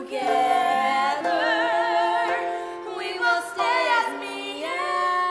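Young stage singers singing a show tune, several voices in harmony, holding long notes, one of them with a wide vibrato.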